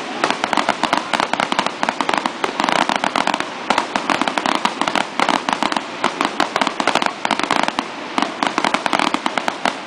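Fireworks display going off in a rapid, unbroken barrage of bangs and crackling reports, many a second.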